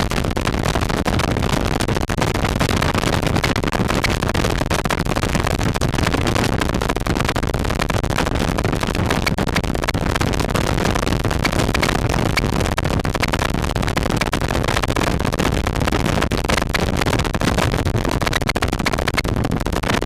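Steady wind buffeting on the microphone of a camera mounted on a touring motorcycle at highway speed, with the bike's engine and road noise under it.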